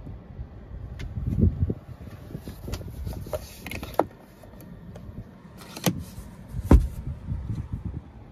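A few sharp clicks and dull knocks from hands pressing the overhead console's light buttons and handling the camera inside a car cabin.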